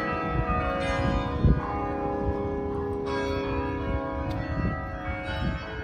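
Church bells ringing, a new bell struck every second or two so that several notes of different pitch sound together and hang on.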